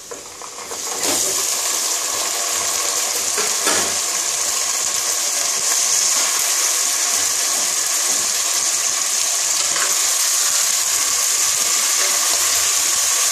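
Raw chicken pieces sizzling loudly in hot mustard oil with fried onion and ginger-garlic paste. The sizzle jumps up about a second in as the chicken hits the oil and then holds steady, while a wooden spatula turns the pieces.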